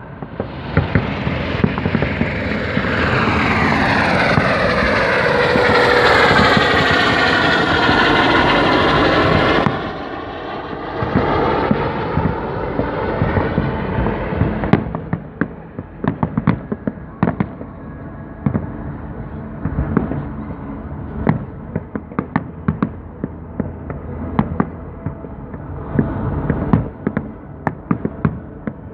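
Aerial fireworks going off: about ten seconds of a dense, loud, continuous crackling hiss that cuts off suddenly, then many separate sharp bangs and pops at uneven spacing.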